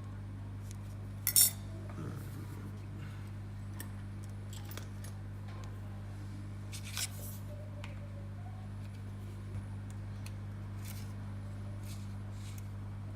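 A few light metallic clinks: a sharp one about a second in and a fainter one around seven seconds, with small ticks between, over a steady low hum.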